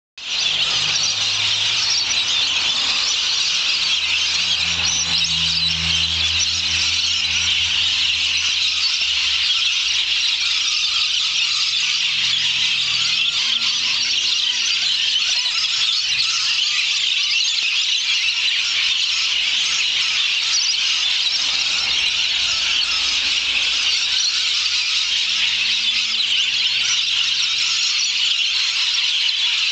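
A large flock of lorikeets screeching all at once, a dense, unbroken din of shrill calls: hundreds of birds settling into the trees for their evening roost.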